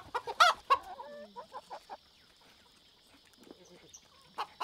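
Chickens clucking: a quick run of short, sharp clucks, a brief lull, then more clucks near the end. A faint steady high hiss runs underneath from about a second in.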